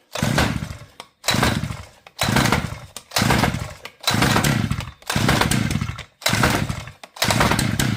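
Rebuilt Jiffy auger engine, choked, being cranked by repeated pulls on its recoil starter cord: eight short bursts of turning over, about one a second, each fading out, without the engine running.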